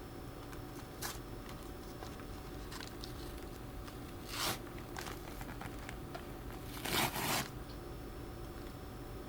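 An Amazon shipping package being torn open by hand: a faint click, then a short tearing rip about halfway through and a louder double rip near the end, over a steady low hum.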